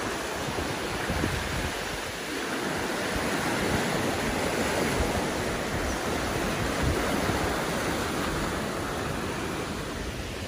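Flooded creek running high and fast, its muddy water rushing and churning in a steady, dense noise. The noise eases slightly near the end.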